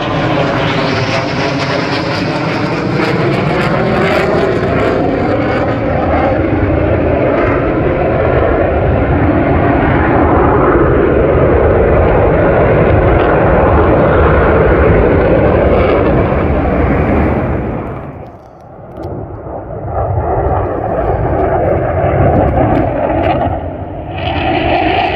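Two CF-18 Hornet fighter jets passing overhead: a loud, steady jet roar with a sweeping, phasing whoosh in its first few seconds. The roar drops away sharply about 18 seconds in, then jet noise builds again.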